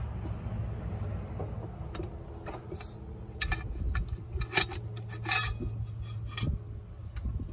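Scattered sharp metallic clinks and knocks, bunched in the middle, from a steel pipe slipped over a wrench as it is levered against a stuck oil filter adapter bolt, over a steady low hum.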